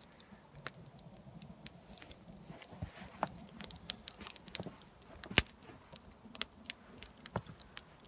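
Firewood burning in a metal brazier, crackling with irregular sharp pops, the loudest about five and a half seconds in.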